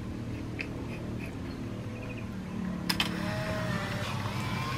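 Handling noise of a handheld camera: small clicks and cloth rubbing as it is jostled against clothing, with a sharper click about three seconds in, over a low steady hum.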